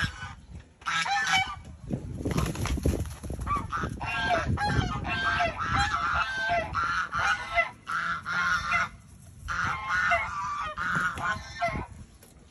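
Domestic geese honking loudly and repeatedly, a run of harsh calls with short breaks and a brief pause near the end, the aggressive honking of geese squaring up to a peacock.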